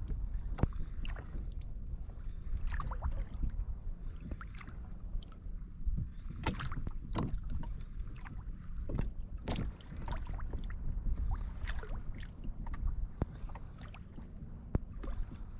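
Water splashing and lapping against a fishing kayak in short, irregular splashes, over a steady low rumble.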